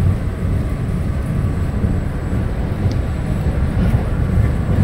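MBTA Red Line subway car running, heard from inside the car: a steady low rumble of wheels and motors on the track, with one brief high squeak about three seconds in.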